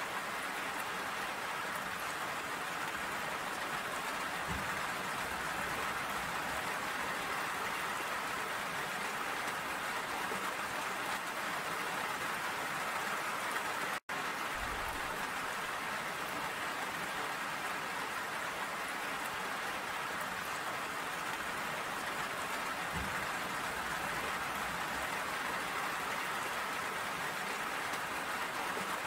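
Steady rain falling, an even hiss with no change in strength. The sound cuts out for an instant about halfway through.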